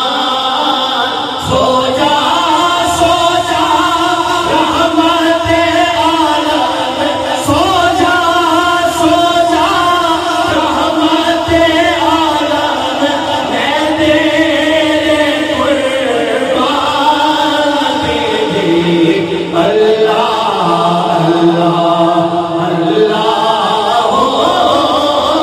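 A naat, an Urdu devotional song in praise of the Prophet, sung by voices blended like a choir in long, flowing melodic lines.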